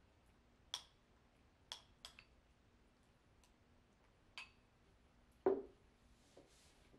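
A spoon clinking against a bowl while eating, five short, bright clinks spread over the first four and a half seconds. About five and a half seconds in comes a louder, duller knock as the bowl is set down on the desk.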